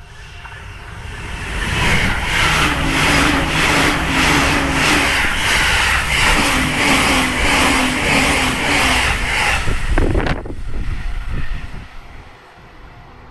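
JR East E259 series Narita Express electric train passing at speed: the sound builds over about two seconds into a loud, steady run of wheel and rail clatter in an even rhythm with a hum underneath, then drops away sharply about ten seconds in as the train goes by and fades.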